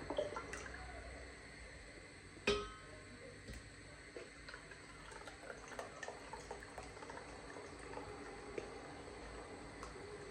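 Cleaning in a bathroom: light water splashing and dripping, with scattered small clicks and knocks. One sharp knock about two and a half seconds in is the loudest sound.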